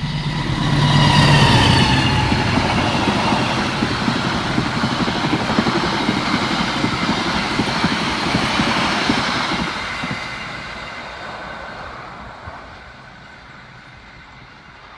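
A diesel-electric locomotive passes close by, its engine note falling in pitch as it goes past. The carriages' wheels follow, clattering rapidly over the rails, then fade away over the last few seconds.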